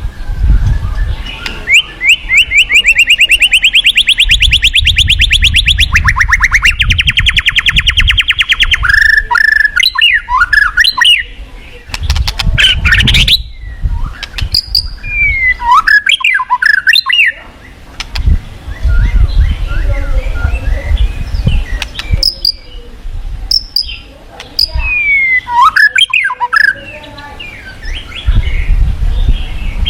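White-rumped shama (murai batu) singing: a long, rapid rattling trill for several seconds, then a run of sliding whistled phrases that rise and fall, repeated later.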